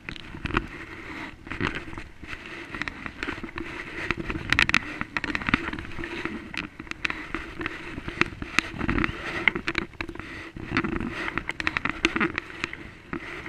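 Double-bladed paddle stroking through the water beside an inflatable kayak: steady splashing and dripping, with many small clicks and knocks throughout.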